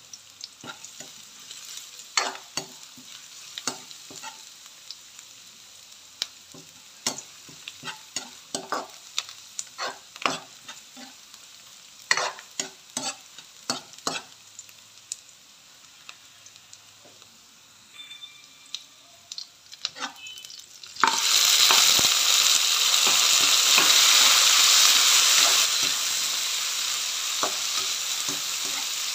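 A spatula scrapes and taps against a wok in scattered clicks while sliced shallots and garlic fry with a faint sizzle. About 21 seconds in, a loud sizzle starts suddenly, when tomato wedges go into the hot oil, and it carries on under the stirring.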